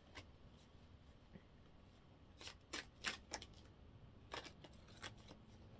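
Faint hand shuffling of a tarot deck: a few short, soft card snaps, about four bunched a little before halfway and three more later on.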